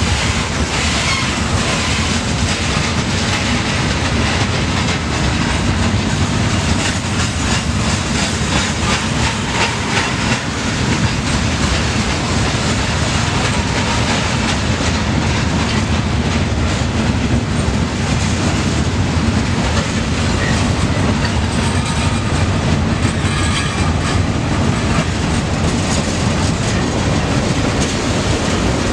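Freight train cars, coil-steel cars and tank cars, rolling steadily past: a continuous rumble of steel wheels on rail with clickety-clack over the rail joints.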